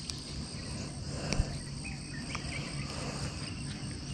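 Steady chorus of insects chirring, with a single short knock about a third of the way through.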